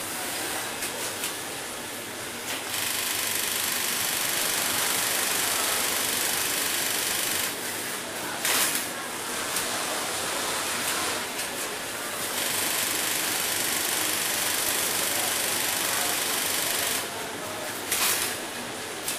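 Industrial sewing machine for pants running in two steady spells of about five seconds each, with short sharp clacks between the spells.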